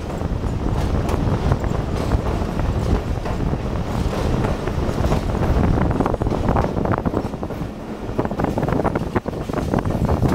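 Running noise of a moving passenger train heard from an open coach door or window: a steady rumble with rattling clicks from the coach and wheels, and wind rushing over the microphone.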